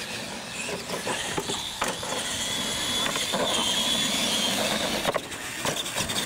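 Radio-controlled monster trucks driving fast on concrete, with a steady high-pitched motor and gear whine that sets in about halfway and a few sharp knocks.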